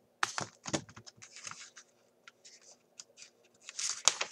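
Paper rustling and light clicks as a picture book is handled and its page turned, in irregular bursts that come just after the start and again, loudest, near the end.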